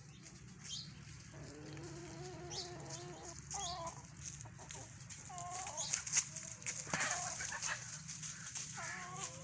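Domestic chickens clucking and calling. There is one long wavering call about two seconds in, then several shorter calls, with short high chirps scattered through.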